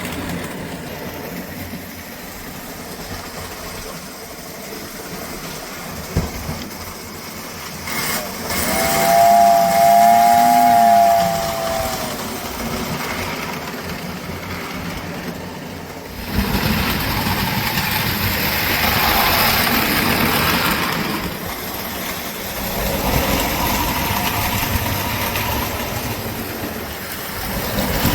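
American Flyer 322 model steam locomotive running on the track, its whistle blowing for about three seconds just under ten seconds in. From about sixteen seconds in the running noise gets suddenly louder and fuller.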